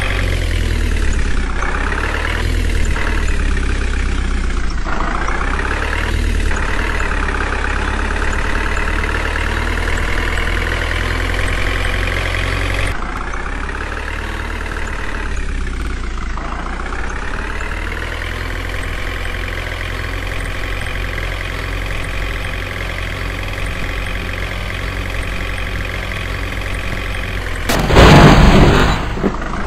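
Truck engine sound, laid over a toy dump truck that has no engine of its own, its pitch dipping and rising as it revs. It breaks off and restarts abruptly partway through. Near the end comes a short, loud crash as the truck tips over into a pit.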